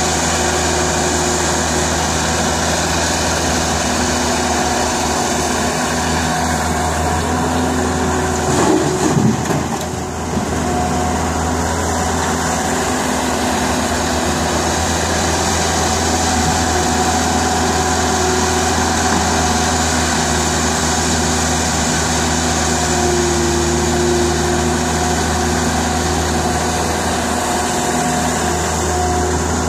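Caterpillar E120B excavator's diesel engine running steadily while it digs and loads soil into a dump truck, with a brief louder surge about nine seconds in.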